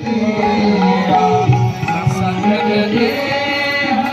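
Indian devotional music: singing with hand drums, loud and continuous.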